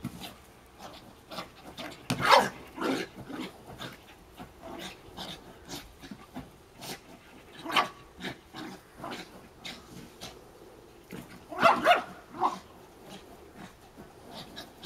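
Small terrier giving short barks while it pushes a big ball about. The loudest barks come about two, eight and twelve seconds in, with quieter short dog sounds in between.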